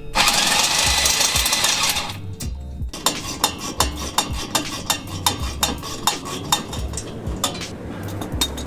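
Metal tools clinking and knocking against rusted exhaust bolts and pipe, in sharp irregular strikes about two or three times a second. A loud hiss fills the first two seconds. Background music with a pulsing bass plays throughout.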